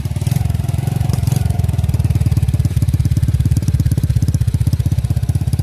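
SYM 110 single-cylinder four-stroke motorcycle engine running steadily, heard close to the muffler outlet as a quick, even train of exhaust pulses. The engine is burning oil and smoking, which the mechanic expects to cure with new piston rings and valve seals.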